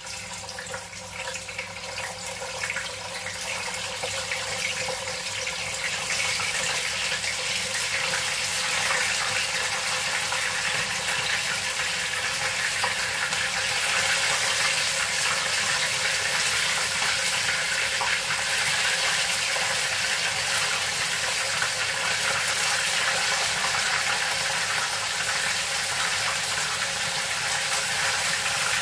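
Vegetable-stuffed chicken wings deep-frying in hot oil in a wok: a steady sizzle that starts suddenly as the first wing goes in and grows louder over the first several seconds as more wings are added with tongs.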